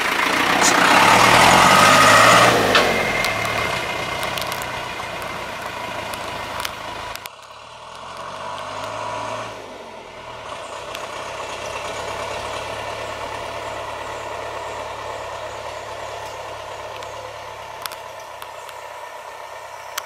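Toyota Bandeirante's diesel engine pulling away, its revs rising and falling as it goes up through the gears, loudest at first. After a sudden break about seven seconds in, it revs up again and then settles to a steady, quieter drone.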